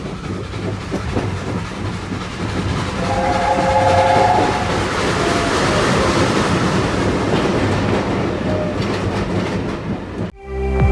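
A steam train running, a steady rumble and clatter that grows louder toward the middle, with the locomotive's chime whistle sounding briefly about three seconds in. The locomotive is the LNER A4 Union of South Africa.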